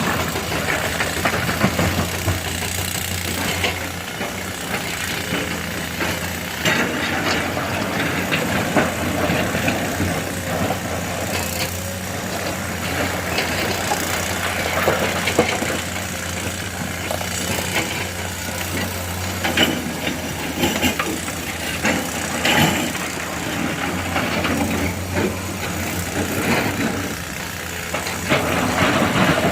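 Heavy diesel earthmoving machinery running steadily, with scattered clanks and rattles over the engine hum.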